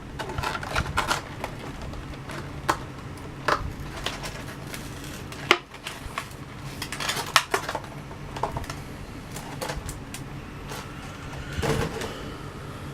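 Irregular clicks, taps and knocks of a diecast model car's packaging being handled and opened, with sharper clicks about five and a half and seven seconds in and a short scraping rustle near the end.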